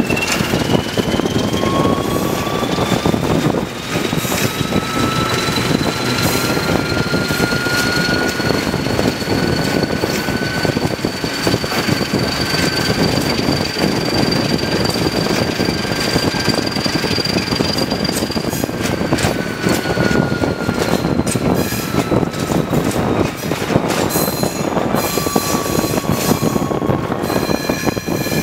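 Alco S2 diesel switcher locomotive working under power, its engine running with a whine that rises slowly in pitch and then falls away in the last third, typical of the S2's turbocharger. It is heard from a car pacing alongside, over steady road and wind noise.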